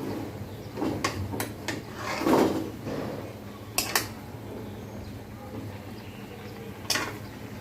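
Cooking utensil knocking and scraping against a pan while a whole chicken is turned in it: a few sharp clinks, with a louder scrape about two seconds in.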